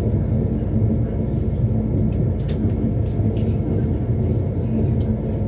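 Train running at a steady speed: a constant low running noise of wheels on rails, with a few faint clicks scattered through it.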